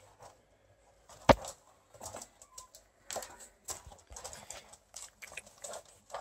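Pug puppy scampering about on a wooden floor: irregular claw clicks and scuffling, with one sharp knock about a second in.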